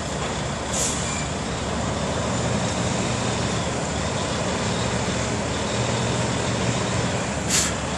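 Diesel engine of a semi truck (tractor-trailer) running steadily at low speed, with two short hisses, one about a second in and one near the end.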